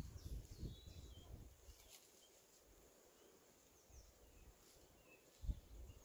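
Near silence outdoors: faint scattered bird chirps over a low rumble that dies away after the first second or so, with one soft low thump near the end.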